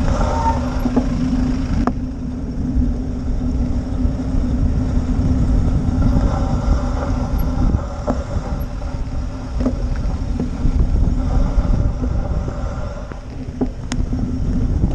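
Road traffic: a steady car-engine hum from queued and passing cars over a low rumble of wind on the microphone, with a few knocks scattered through, and a cluster of rattling clicks near the end.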